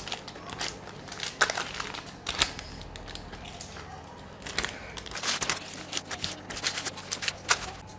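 Baking parchment paper crinkling and rustling in irregular crackles as hands roll a baked zucchini sheet up inside it.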